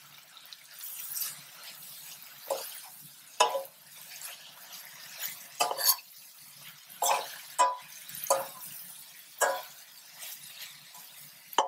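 Slotted metal spoon stirring chicken and vegetables in a stainless steel pan: irregular scrapes and clinks of metal on metal, roughly one a second from about two seconds in, over a soft sizzle of frying.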